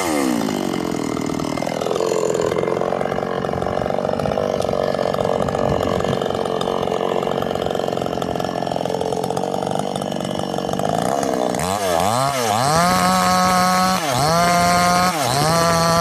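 Two-stroke chainsaw cutting into a tree stump. The engine winds down right at the start and runs at a lower, steady speed for about ten seconds. Then it revs up and down twice and is held at high revs, louder, with two brief dips near the end.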